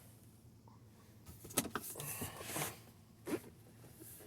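Faint clicks and rustles from handling things inside a vehicle cabin: a cluster of short sounds between about one and a half and three seconds in, and one more a little later.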